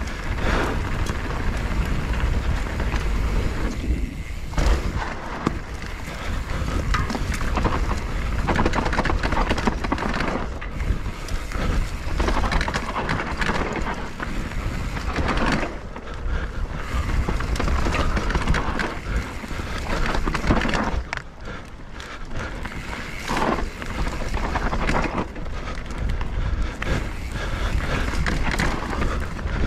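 Mountain bike rolling fast down a dirt trail: wind buffeting the camera microphone and tyre rumble, broken by frequent knocks and rattles from the bike over bumps.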